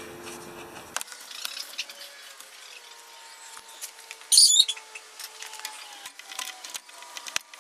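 Light clicks and scrapes of hands and hand tools handling engine parts while the carburetor's intake tube and clamp are refitted, with one brief loud rasp a little over four seconds in.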